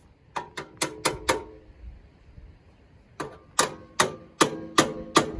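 Hammer striking the steel chassis rail, each blow ringing: a quick run of five strikes, a pause of about two seconds, then six evenly spaced strikes, knocking the new rail into position.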